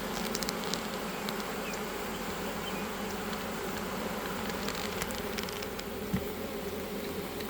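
A large swarm of honeybees buzzing around an open hive: a steady, dense hum, with a few light clicks and one short thump about six seconds in.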